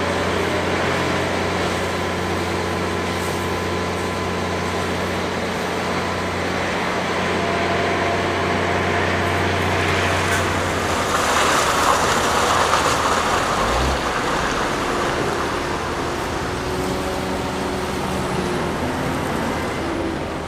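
High-pressure water jet hissing as it sprays over steel excavator crawler tracks, over a steady engine hum; the spray noise swells to its loudest about halfway through.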